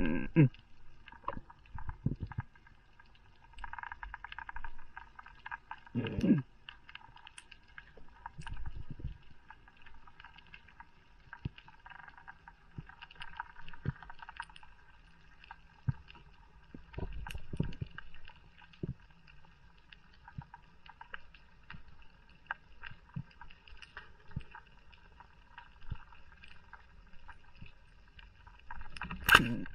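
Underwater audio from an action camera's waterproof housing while a diver swims over a reef: a faint steady hiss, scattered small clicks, and occasional muffled low thumps, the strongest at the start, about six seconds in and near the end.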